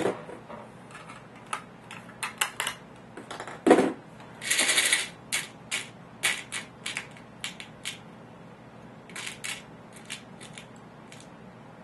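Small metal screws clicking and rattling in a clear plastic storage box as fingers sort through them. A sharp knock comes a little under four seconds in, followed by a denser rattle lasting about a second, then scattered clicks.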